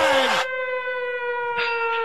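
Civil-defense-style siren sound effect, played as the alarm for a big card pull: a steady wail slowly falling in pitch. Two short rushes of hiss cross it, at the start and near the end.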